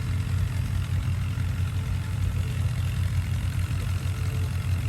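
A tractor engine running at a steady idle, low-pitched and even, with no revving.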